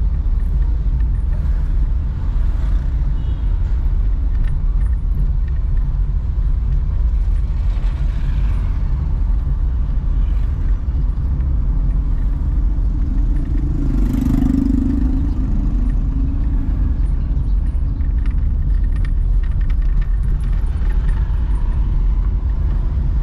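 Steady low rumble of a car driving, its engine and tyres running continuously. A louder low hum rises for about a second a little past halfway.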